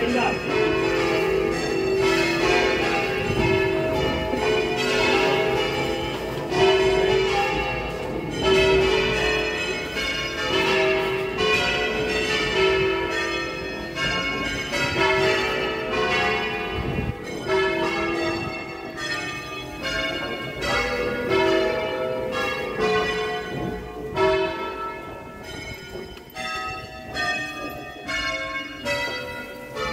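Ring of nine church bells tuned in E (tenor E3, 761 kg) rung full circle by ringers on ropes in the Veronese system. The bells strike one after another in a quick run, their ringing tones overlapping.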